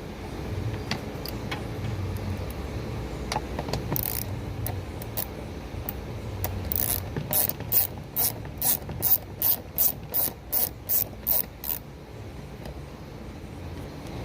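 Hand ratchet clicking as it backs out the Torx screws holding a rear window regulator motor: a few scattered clicks, then a steady run of about a dozen quick ratchet strokes in the second half.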